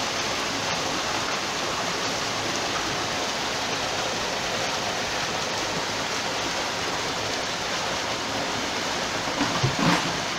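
Water pouring steadily over a dry dock's gate sill and churning around a narrowboat's stern as the dock is flooded. A few brief louder sounds come near the end.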